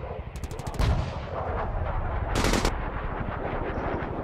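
Rapid automatic fire, dense and continuous, with two short clattering bursts of rapid shots about half a second and two and a half seconds in.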